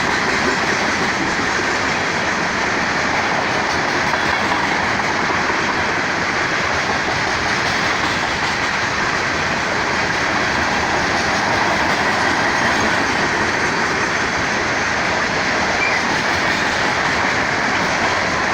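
Two BNSF freight trains rolling past at once: a steady rumble and rattle of freight-car wheels on the rails, unbroken throughout.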